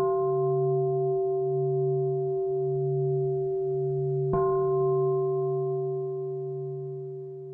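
Singing bowl ringing, struck again about four seconds in. Its lowest note wavers slowly, and the ring fades toward the end.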